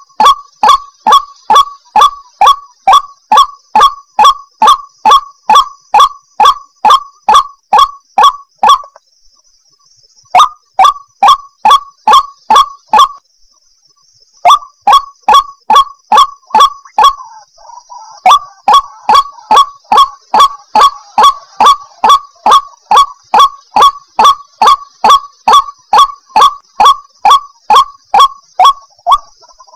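White-breasted waterhen calling: a fast, unbroken string of loud, harsh repeated notes, about two a second, with two short breaks. A faint steady high-pitched hiss runs beneath.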